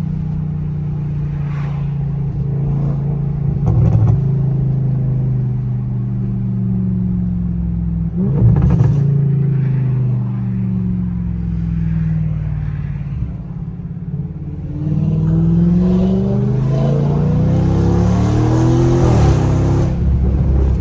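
Audi S8's twin-turbo V8 with catless downpipes and a large aftermarket intake, driven under load: the engine note climbs and falls with the throttle, and from about two thirds of the way in it revs up hard and steps down through gear changes.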